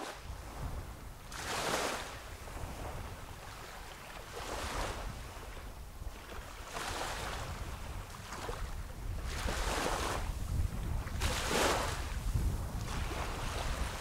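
Small North Sea waves breaking and washing up a sandy beach, with a hissing surge every two to three seconds over a steady low rumble.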